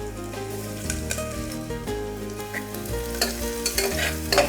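Garlic-ginger paste sizzling in hot oil in a pressure cooker while being stirred, with sharper scraping clicks of the spoon against the pot from about three seconds in.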